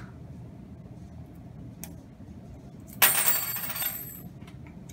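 A small metal rider mass clatters onto the lab bench about three seconds in and rings for about a second as it settles, with a few light clicks of small masses being handled before and after.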